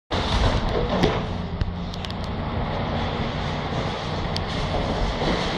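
Steady low rumble of road traffic going by, with some wind on the microphone and a few faint clicks.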